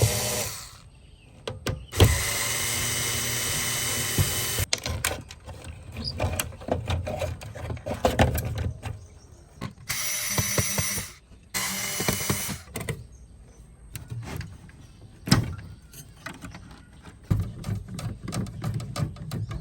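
A small electric power tool, like a drill or rotary tool, running in short bursts of about two seconds each, with clicks and knocks of parts being handled between the runs.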